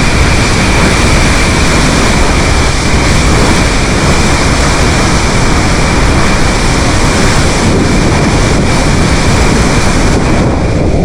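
Loud, steady rush of the flood-swollen Au Sable River pouring through the Mio Dam, its higher hiss dropping away near the end.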